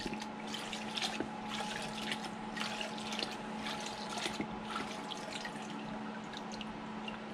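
Resin 3D-printed part being swished and rinsed in a cup of alcohol: light, irregular splashing and dripping of liquid over a steady faint hum.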